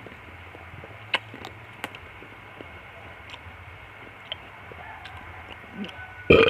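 Eating sounds of fruit soup being spooned and chewed: a few faint, scattered clicks of a spoon against a bowl. Near the end comes one short, loud, noisy burst.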